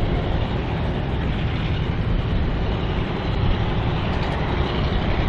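Steady diesel locomotive running and rail noise as a short rake of passenger carriages rolls slowly through the yard.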